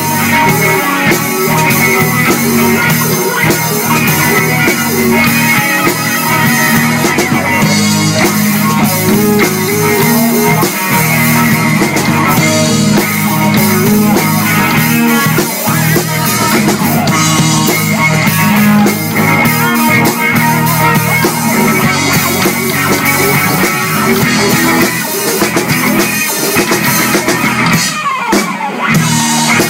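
Rock band playing an instrumental break between sung verses, with electric guitar over a steady drum kit beat.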